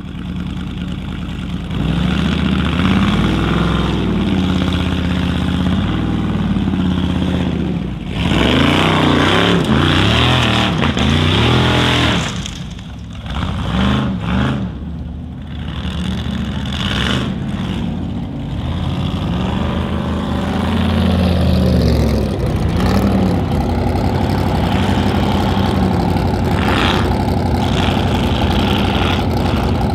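Formula offroad racing car's engine revving hard, its pitch sweeping up and down again and again as the throttle is worked, then holding steadier near the end.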